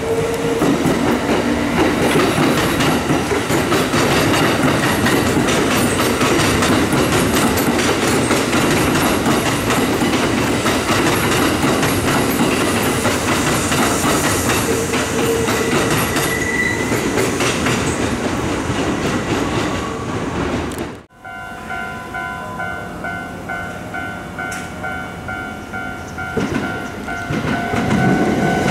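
A Kintetsu electric train running past close by, its wheels clattering over the track. About three-quarters of the way through it cuts off suddenly, and a level-crossing alarm rings with an even, repeating ding.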